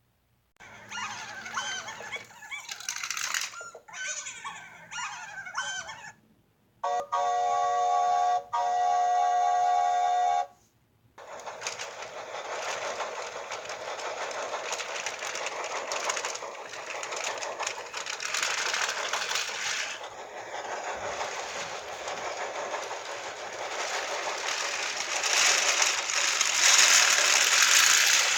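A string of separate sound effects, one after another with sharp cuts between them. First come a few seconds of quick chirping calls that glide in pitch. Then a steady buzzing tone lasts about three and a half seconds, followed by a long rushing noise that swells louder near the end.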